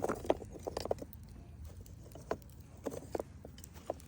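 Scattered light knocks and clacks: a quick cluster in the first second, then a few single ones.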